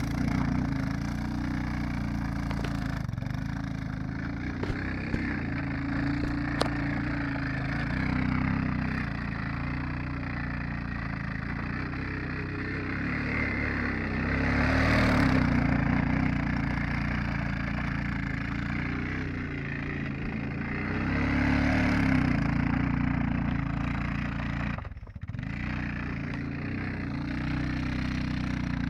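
Bashan 250cc ATV engine running under throttle, its revs rising and falling, with two longer surges of louder revving around the middle and later on. A few sharp ticks early on, and the sound drops out briefly near the end.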